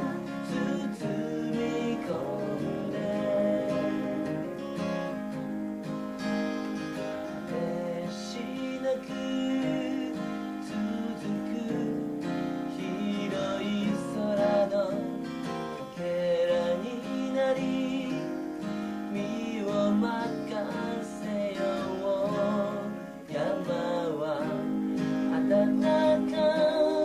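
Acoustic guitar strummed and picked in a slow song's passage between sung lines, with steady held tones running under it.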